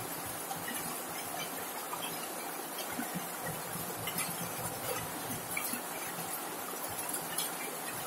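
Heavy rain falling steadily on a corrugated zinc (seng) roof: a dense, even hiss of rainfall with many small ticks of drops striking the metal.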